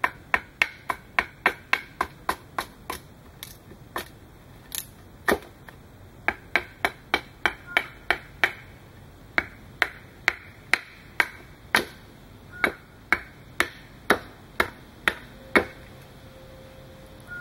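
Norlund hatchet chopping down the edge of a thin upright wood slat on a chopping block: rapid sharp chops, about three a second, with a few short pauses. This is rough shaping of the slat with the hatchet, before knife work.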